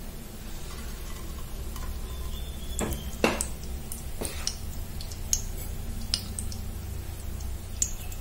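A metal spoon clinking against an aluminium pressure cooker as ghee is added: several sharp metallic clinks with a brief ring, the loudest about three seconds in, the rest spread over the next few seconds. A steady low hum runs underneath.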